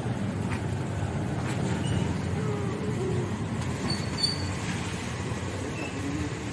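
Steady low rumble of street and traffic noise, with faint voices in the background.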